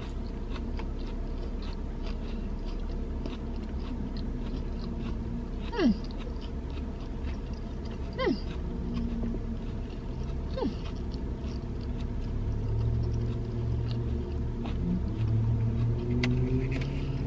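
A person chewing a mouthful of chicken sandwich, faint small mouth clicks over a steady low hum inside a car. Three short sounds that fall sharply in pitch cut through, about two and a half seconds apart, near the middle.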